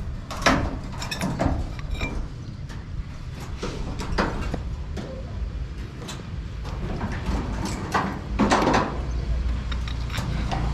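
Building-site work noise: scattered knocks and clatter, loudest about half a second in and again near the end, over a steady low rumble, with faint voices.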